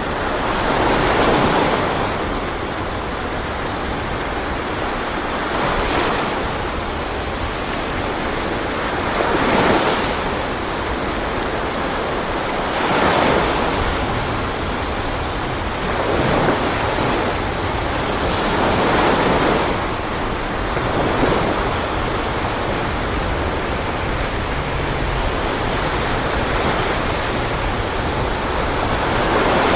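Sea waves washing, a steady rushing that swells and falls back every few seconds.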